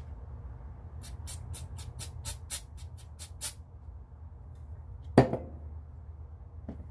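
Aerosol gun cleaner sprayed into a .22 rifle barrel in a rapid series of short hisses, about four a second, for a couple of seconds. A single loud knock follows about five seconds in, with a fainter one near the end.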